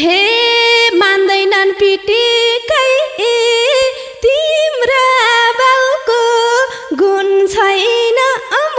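A woman singing a Nepali dohori folk line alone, without accompaniment, in long held notes that slide and waver between pitches.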